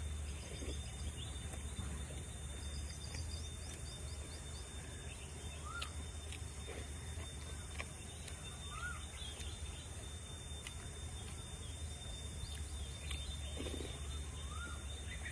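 Woodland ambience: a steady high insect drone with a bird giving short rising-and-falling chirps every couple of seconds, over a low steady rumble.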